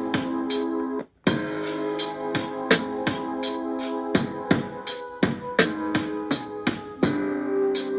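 A beat sequenced from the Akai MPC Live's stock sounds playing back: sharp percussion hits in a steady rhythm over sustained keyboard chords. The playback stops dead for a moment about a second in, then carries on.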